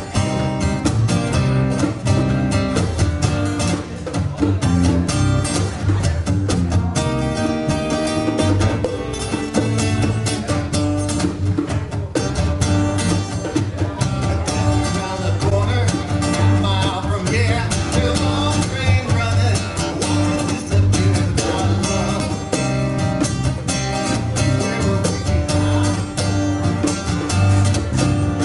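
A live band playing a cover song: guitar-led music with a steady beat, and singing at times.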